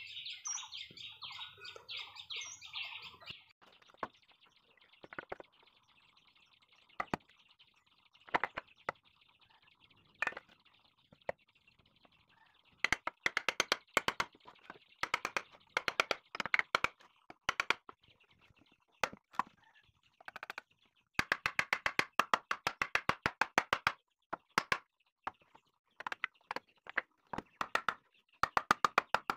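Birds chirping for the first few seconds. Then a hammer knocking the teak joints of a window sash frame together: scattered single blows at first, then from about halfway through, fast runs of many quick blows.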